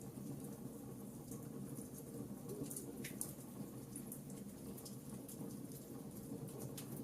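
Wood fire burning in a fireplace, crackling with scattered sharp pops over a steady low rush of flame.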